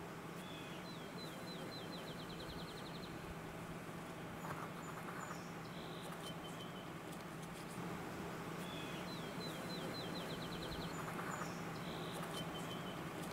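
A songbird singing the same short song twice, a quick run of high notes, over steady outdoor background noise with a low, steady hum.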